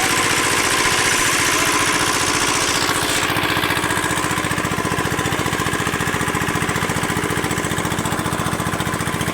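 A small single-cylinder engine running steadily at constant speed, with an even, rapid pulse.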